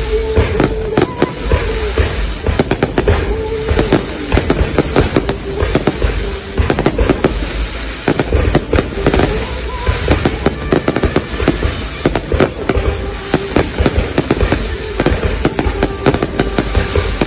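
Fireworks display going off continuously: many sharp bangs and crackles in quick succession, with no break.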